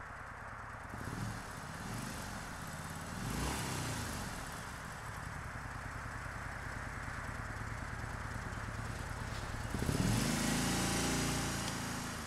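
Road vehicles passing one after another over a steady background hiss: three passes, each swelling and fading, the loudest about ten seconds in.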